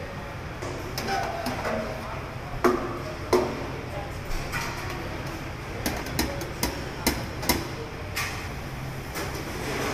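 Large metal food can knocked against the rim of a tilting braising pan to shake out its contents, giving a string of sharp, irregular metal knocks, bunched about two-thirds of the way in, over a steady low kitchen hum.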